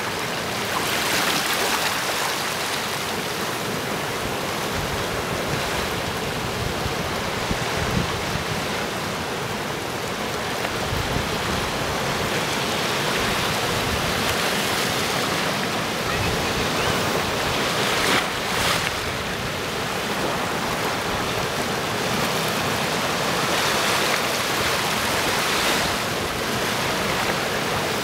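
Small sea waves washing in and out among granite boulders on a rocky shore: a steady hiss of surf that swells and eases every few seconds, with a brief louder wash a little past the middle.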